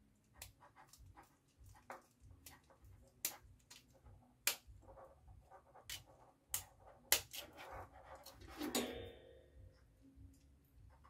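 Small screwdriver clicking and tapping on the terminal screws of a plastic relay socket as wires are fastened, a string of sharp clicks. A short squeaky whine comes about eight and a half seconds in.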